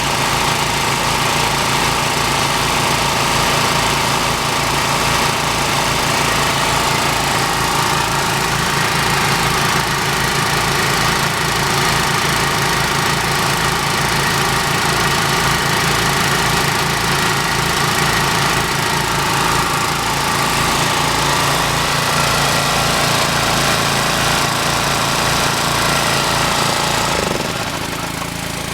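Small gasoline engines of two old portable air compressors running together, with a fast, even exhaust beat. Near the end the pulsing beat stops while a steadier running carries on.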